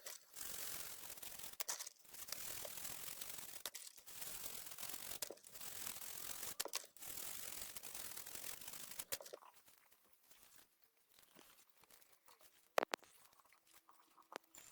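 Repeated scratchy rubbing or scraping strokes, each lasting a second or two with short breaks. From about nine seconds in it goes much quieter, with a few light clicks and one sharp click near the end.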